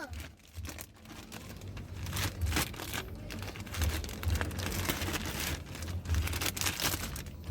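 Irregular crinkling and rustling of something being handled, with scattered light knocks.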